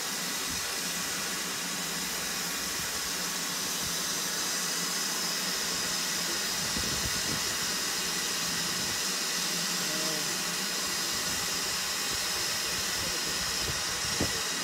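Ivatt Class 2MT 2-6-0 steam locomotive standing with steam escaping in a steady hiss.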